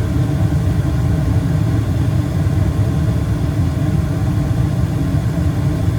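2006 Carrier gas furnace running just after ignition: its five gas burners firing and the draft inducer motor running, a steady low rumble.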